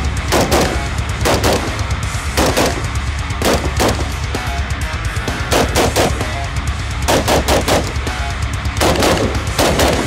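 AR-15-style rifles fired in quick pairs of shots, a pair every second or so, with a few faster runs of three or four.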